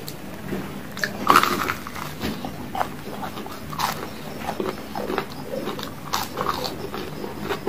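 Close-up eating sounds: a person biting into and chewing deep-fried battered snacks (gorengan), in irregular sharp bites and chews, the loudest bite about a second in.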